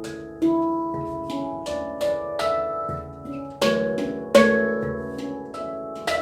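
Handpan tuned to a C# pygmy scale, played by hand: a flowing run of struck, ringing notes over low bass tones, with two stronger strokes about two-thirds of the way through.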